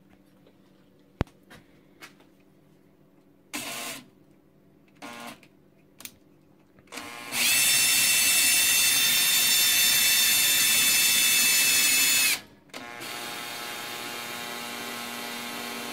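Cordless drill turning the X-axis ball screw of a homemade CNC router to test how freely the carriage runs on its V-groove bearings. After a sharp click about a second in, it gives a few short trigger bursts, then runs loud and fast with a steady whine for about five seconds. It then runs more quietly for about three seconds and stops.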